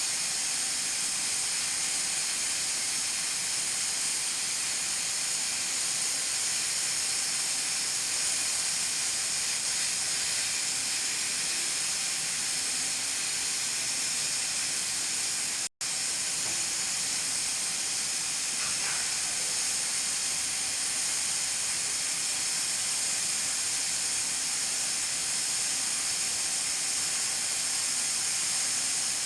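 Pressure cooker hissing steadily as steam escapes past the weighted valve on its lid, with a faint steady whistle under the hiss. The hiss cuts out for an instant about halfway through, then carries on unchanged.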